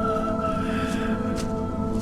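Background music of sustained held tones, with a soft swell about half a second in.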